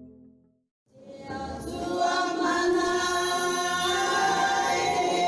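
A choir singing held chords in several voices, fading in about a second in after a brief silence.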